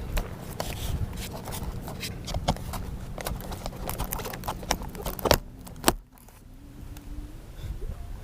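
Handling noise close to the microphone: scattered clicks, taps and scrapes, two sharper ones about five and six seconds in, over a low hum. A faint rising tone comes in near the end.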